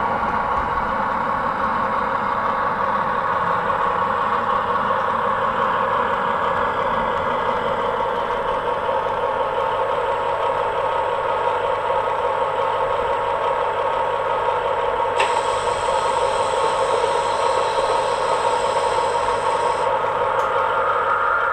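00 gauge model two-car diesel multiple unit running along the platform, with a steady diesel engine sound. About three-quarters of the way through, a click is followed by a high-pitched sound lasting about five seconds.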